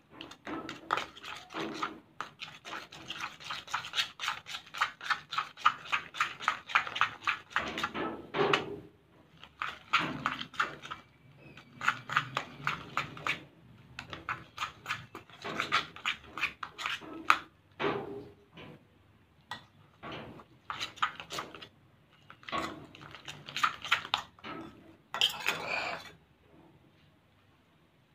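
Metal spoon stirring and scraping a thick slime mixture around a bowl: runs of quick scrapes and clinks in bursts of a few seconds with short pauses, as the mixture firms into a lump of slime.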